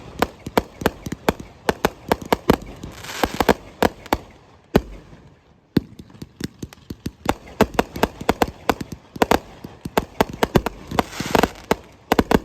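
Fireworks going off in rapid succession: many sharp bangs with bursts of crackling, and a short lull about five seconds in.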